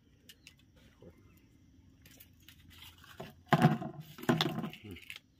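Dried fish being pulled and torn off a split bamboo skewer by hand: small clicks, then brief tearing and rustling about three and a half seconds in, with a man's low voice over it.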